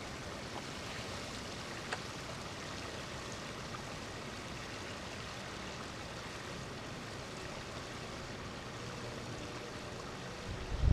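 Steady outdoor wind hiss, with one faint click about two seconds in. Near the end, gusts start buffeting the microphone.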